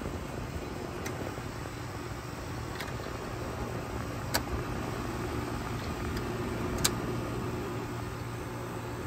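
Friedrich QStar window air conditioner running with a steady hum, with two sharp clicks about four and a half and seven seconds in.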